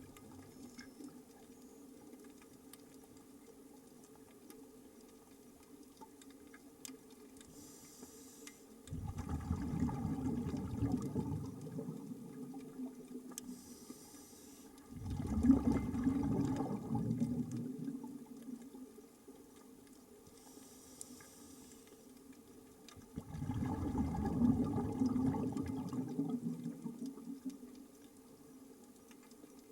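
Scuba diver breathing through a regulator underwater: three breaths, each a short hissing inhale followed by a longer, louder bubbling exhale, over a faint steady hum.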